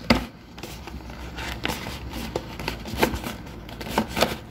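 Small cardboard product box being opened by hand: a knock right at the start, then irregular small clicks, taps and rustles of the flaps and packaging being worked open.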